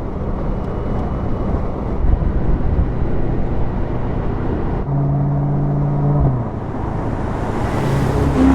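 Mercedes-AMG SL 55's 4.0-litre biturbo V8 engine and exhaust running with a deep, loud rumble. About five seconds in, a steady engine note is held for just over a second, then drops away. A rising hiss builds near the end.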